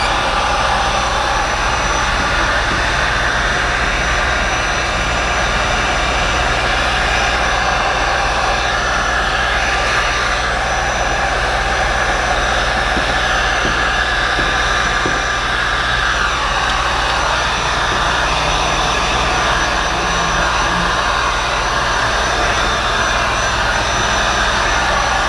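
Handheld heat gun running steadily on high heat, a constant blower whine and hiss, used to fast-dry freshly installed paint protection film on a headlight.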